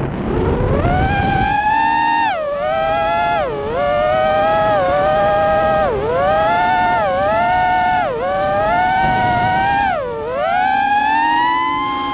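Brushless motors and 5-inch props of a 210-size FPV racing quadcopter whining, heard from the onboard camera. The pitch dips sharply and climbs back every second or two as the throttle is worked, then rises steadily near the end, with a rush of wind noise in the first second or so.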